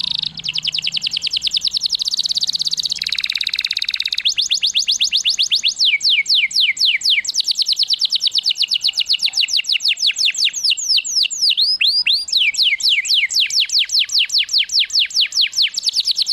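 Domestic canary singing: long, rapid trills of repeated downward-sweeping notes that change speed from phrase to phrase, with a lower buzzy phrase about three seconds in.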